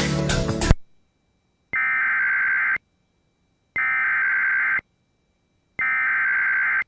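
Emergency Alert System SAME header: three one-second bursts of warbling digital data tones, each a second apart, that encode the start of an alert, here a National Weather Service severe thunderstorm warning. Background music cuts off just before them, under a second in.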